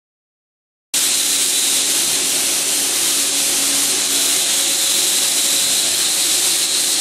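A steady, loud hiss with a faint hum under it, starting abruptly about a second in.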